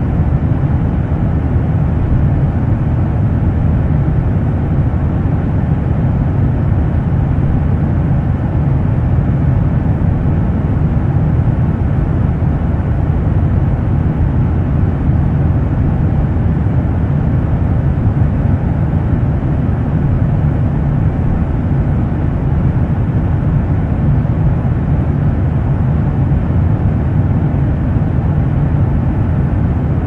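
Airplane cabin noise in cruise flight: a steady, deep rushing drone of engines and airflow, with most of its weight in the low end and little treble.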